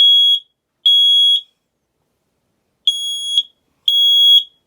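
Kidde smoke alarm sounding its test alarm: loud, high-pitched beeps about half a second long in the three-beep-and-pause pattern of a smoke alarm, showing that the alarm works.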